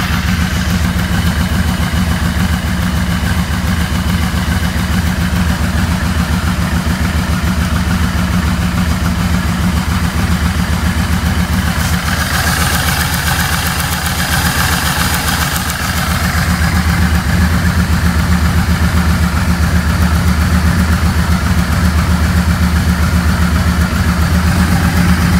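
Yamaha Venture 1300's V4 engine idling steadily while its carburettors are balanced against vacuum gauges. It grows a little louder about two-thirds of the way through.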